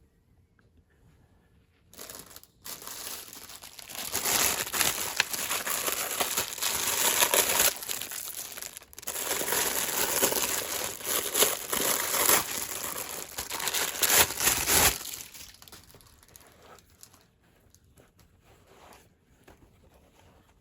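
Packaging crinkling as it is handled and unwrapped, a loud dense crackle lasting about thirteen seconds that stops suddenly, followed by a few faint rustles.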